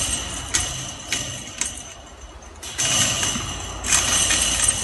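A metal dog chain clinking and rattling as it is pulled and untangled, a string of short sharp clinks with a light ringing, over a low rumble; it quietens briefly in the middle and picks up again.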